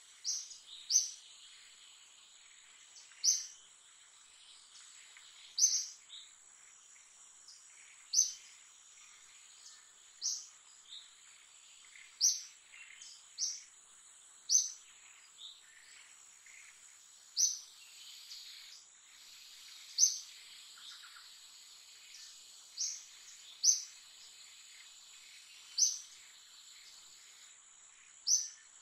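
A bird giving a short, sharp, high chirp every two to three seconds, sometimes twice in quick succession, over a steady high-pitched insect drone.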